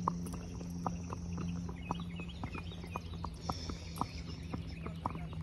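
A horse's hooves clip-clopping steadily on an asphalt road at a walk, about three hoof strikes a second.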